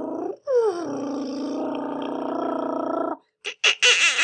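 A person's voice making a long, fluttering "brrrm" engine noise for a toy truck being pushed along, breaking briefly and starting again with a falling glide, held for about three seconds. Near the end come a few short, high, wavering vocal sounds.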